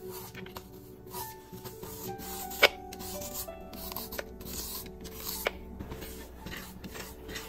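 A julienne peeler scraping down a raw zucchini in repeated strokes, shredding it into thin strips on a wooden cutting board. One sharp click about two and a half seconds in.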